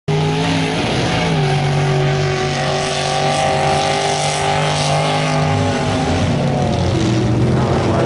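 Lifted pickup mud truck on oversized tires running hard through a mud pit, its engine holding a steady pitch at high power while the spinning tires throw mud and water.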